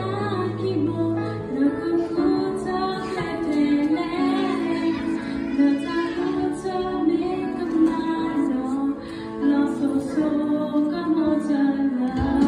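A young girl singing a song into a microphone over a steady instrumental accompaniment, her melody gliding between notes throughout.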